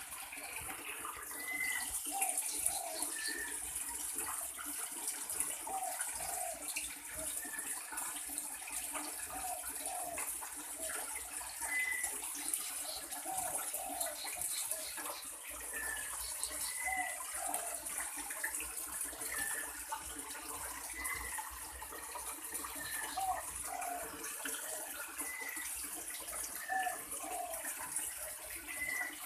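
Small birds calling with short chirps, often in quick pairs, repeated every second or two over a steady hiss like running water.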